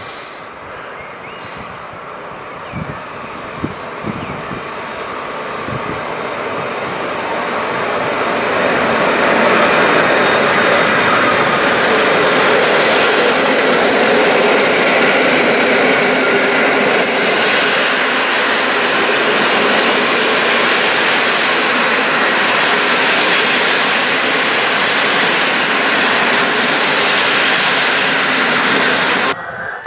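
Passenger train hauled by an EU160 Griffin electric locomotive pulling in to stop alongside the platform. The rumble grows louder over the first ten seconds, then the coaches roll past steadily, with a high brake hiss coming in just past halfway.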